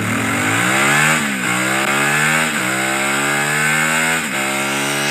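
Honda Transalp 750 parallel-twin engine through an Akrapovic slip-on exhaust, accelerating hard through the gears: the pitch climbs, then drops briefly at each of three upshifts, about one, two and a half and four seconds in.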